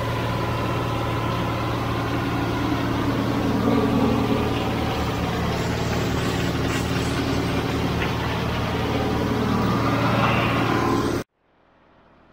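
Tractor engine running steadily under load, driving an International Harvester silage blower through the PTO while a forage wagon unloads chopped corn into it, with a steady low hum and a dense whirring noise over it. The sound cuts off abruptly about eleven seconds in.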